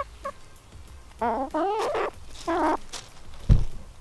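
Silkie chickens calling as they scratch in leaf litter: two short chirps, then two longer wavering calls. A brief low thump comes near the end.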